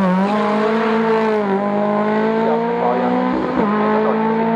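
Opel Kadett C race car's engine pulling hard under acceleration, its pitch climbing steadily, with a gear change about a second and a half in and another about three and a half seconds in.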